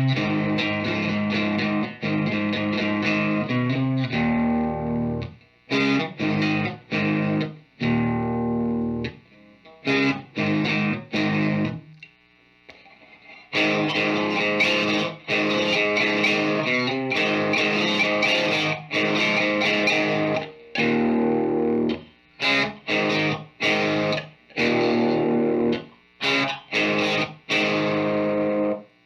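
Distorted electric guitar played through a guitar amp and speaker cabinet: held chords alternating with short, sharply stopped stabs and brief silences.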